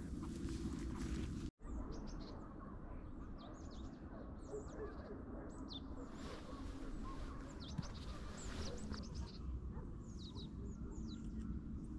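Small birds chirping outdoors: many short, high, downward-sliding calls in quick irregular runs over a low steady background hum. They start after a brief rustling noise that cuts off abruptly about a second and a half in.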